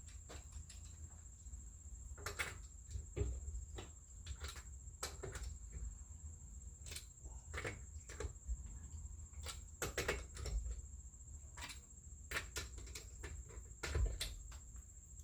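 Sparse light clicks and knocks, a dozen or so spread irregularly, from hand tools being worked on the Corvette's wheel lug nuts as they are loosened.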